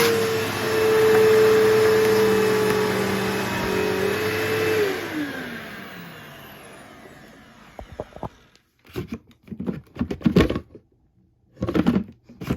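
Bissell Powerforce Bagless upright vacuum cleaner running steadily, then switched off about five seconds in, its motor winding down with a falling whine. After that come a few scattered knocks and rattles of the machine being handled.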